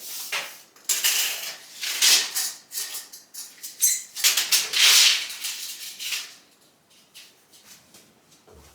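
Rustling and clattering of objects being handled: a dense run of short, scratchy noises that stop about six seconds in.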